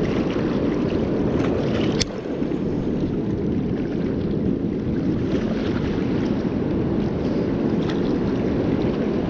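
Steady rush of a swollen, fast-flowing river in high current, mixed with wind on the microphone. A single sharp click comes about two seconds in.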